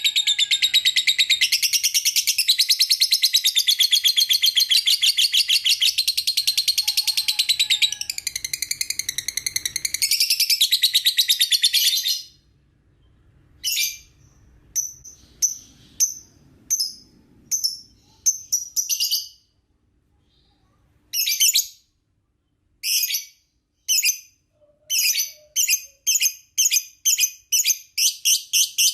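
Lovebird singing a long, rapid chattering trill for about twelve seconds, then breaking into short chattering bursts separated by pauses that come quicker and closer together near the end.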